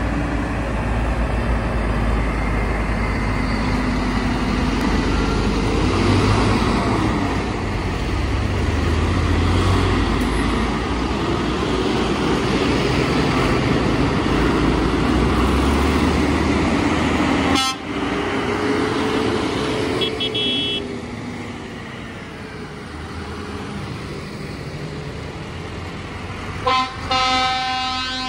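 A procession of large diesel farm tractors, among them a Massey Ferguson, a JCB Fastrac and a Case IH, driving past one after another, their engine note rising and falling as each goes by. A short horn toot sounds about two-thirds of the way in, and a louder, longer horn blast near the end.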